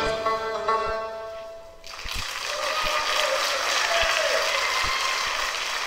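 Recorded dance music ends on a held chord that fades out, and about two seconds in an audience bursts into applause that goes on steadily.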